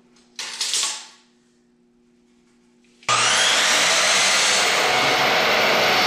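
A brief zip of a tape measure retracting, then about three seconds in an electric miter saw is switched on: its motor whines up to speed and runs loud and steady as the blade cuts a miter in a 2x4.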